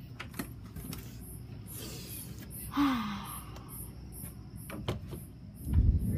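A key being tried in a wooden door's lock: scattered small clicks and rattles, a short scrape about three seconds in, and a heavy thump against the door near the end.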